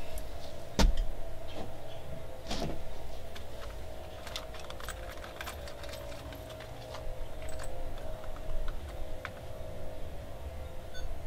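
Hands handling an outboard mounting bolt and washer: two sharp knocks in the first few seconds, then scattered light clicks and taps, over a faint steady hum.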